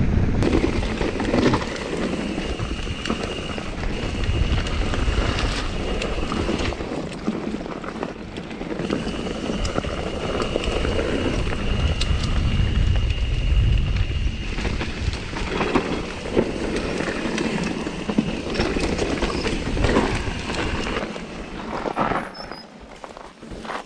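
Mountain bike riding down a rough trail: wind buffeting the microphone over tyre and rattling noise from the bike on the ground, with a thin high whine coming and going. The noise eases off near the end as the bike slows.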